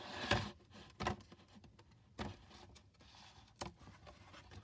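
Stiff board-book page being turned: a short rustling swish, then a few light taps and knocks as the cardboard pages are handled.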